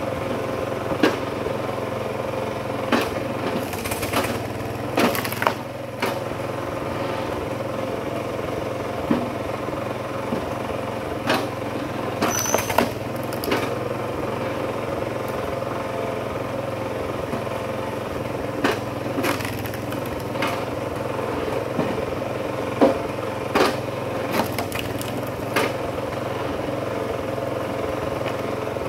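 Kinetic HD Super Split log splitter's engine running steadily, with repeated sharp cracks and knocks as large hardwood rounds split and the pieces drop onto the steel table.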